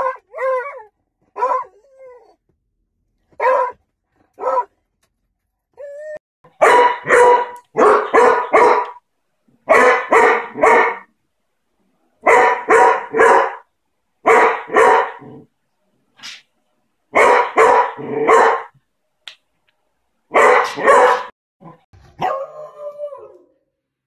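Beagle barking: a few single barks spaced apart at first, then repeated bursts of three or four quick loud barks with short silences between, ending in a drawn-out falling bay.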